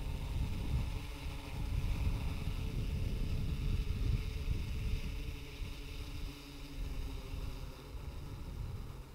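DJI Inspire 1 quadcopter's propellers humming steadily as it descends to land, the hum easing off near the end as it settles on the ground. Wind rumbles on the microphone underneath.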